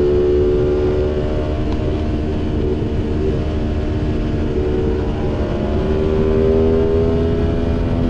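Aprilia Tuono V4's V4 engine running under throttle while riding at speed. The engine note eases off slightly, then climbs steadily over the last few seconds as the bike speeds up, over a low wind rumble.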